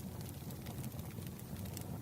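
Firewood burning: a steady low rumble of the fire with a few faint crackles and pops.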